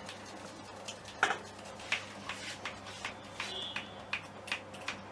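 A louder sharp knock about a second in, then a steady run of short sharp clicks, about two or three a second.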